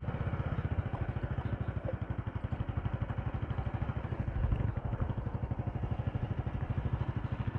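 Motorcycle engine running at a steady speed with an even, rapid putter.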